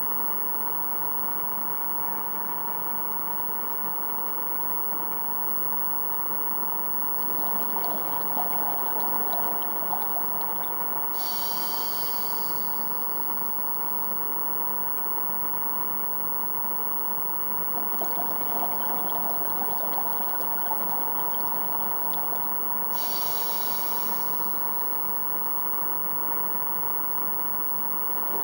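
Underwater sound picked up by a GoPro in its housing during a scuba dive: a steady watery wash with a constant hum. Twice, a swell of bubbling is followed a few seconds later by a short hiss, the pattern of a diver breathing out through the regulator and breathing in.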